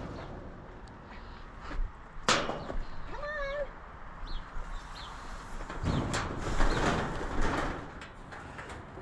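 Metal knocks and rattling from cattle-handling gates and chute, with a sharp bang a little over two seconds in and a longer clatter near the end. About three seconds in there is a short, wavering, fairly high animal call.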